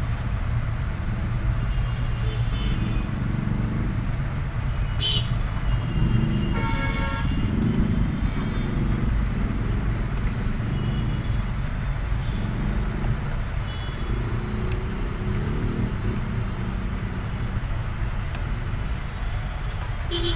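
Steady road-traffic rumble, with a vehicle horn sounding briefly about seven seconds in and a couple of short clicks.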